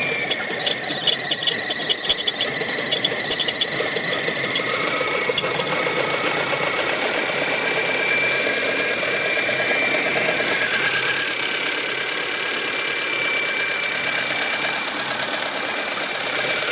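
High-pitched squeal from a 2002 Mazda 626 with its engine running, a steady whistling tone that slides down slightly in pitch over the first couple of seconds, with crackling clicks in the first few seconds; its cause is unknown to the owner.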